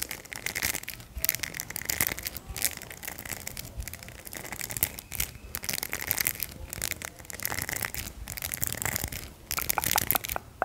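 Hairbrush bristles scratched and rubbed right at the microphone: close-up scratchy rustling in repeated strokes, with a run of quick sharp clicks near the end.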